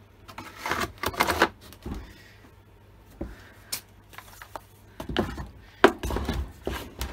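Knocks and clunks of a Stihl MS170 chainsaw being picked up, turned over and set back down on a wooden workbench, with its engine off. They come irregularly, with a cluster about a second in and several more in the last two seconds.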